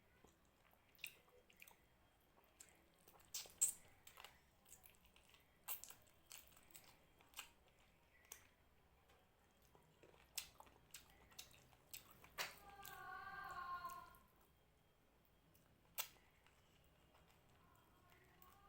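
Close-miked eating sounds of someone chewing rice and mutton curry: scattered wet clicks and mouth smacks, with a brief pitched sound about two-thirds of the way through.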